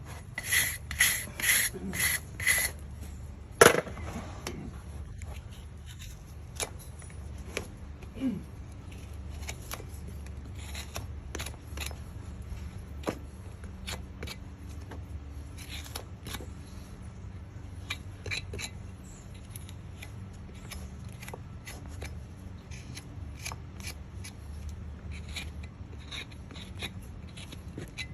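Farrier's hand tools working on a horse's hoof: a quick run of about five scraping strokes, a sharp crack a few seconds in, then scattered snips and clicks of cutting and trimming.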